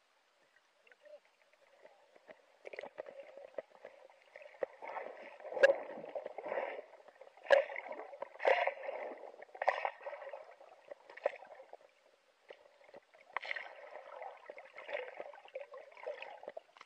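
Muffled water sloshing and gurgling picked up underwater, starting about two seconds in, as a hooked squid is hauled up toward the surface with the camera. Five or so sharp knocks are heard through the water along the way.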